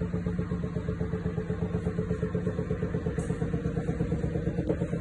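Samsung Ecobubble 10.2 kg washer-dryer spinning with an abnormal noise: a steady mechanical hum with fast rhythmic pulsing, about seven beats a second. The service technician diagnosed it as needing a new motor, drum and bearing.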